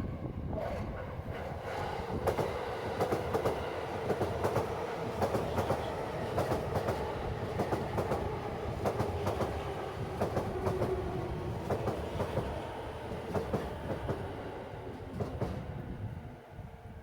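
Electric commuter train passing over the level crossing: wheels clacking over the rail joints in quick pairs, over a rumbling hum, fading near the end.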